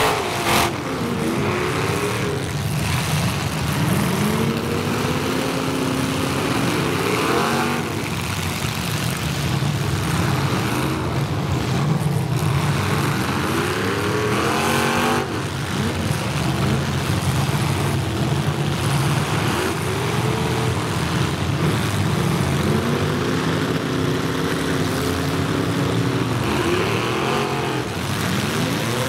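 Several demolition derby cars' engines revving up and down together, their pitch repeatedly rising and falling. A sharp bang comes about half a second in.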